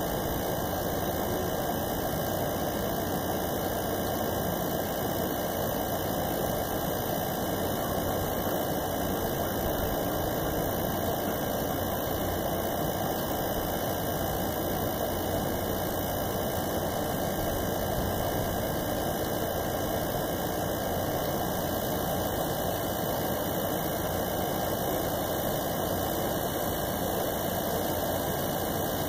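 Steady hiss-like noise with a low hum, unchanging throughout; no thunder claps.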